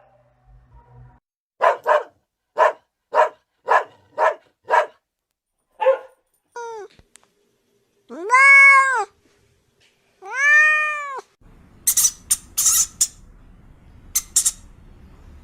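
Cat meowing: a quick run of short mews, then two long drawn-out meows that rise and fall in pitch. A stretch of sharp, hissing noises follows in the last few seconds.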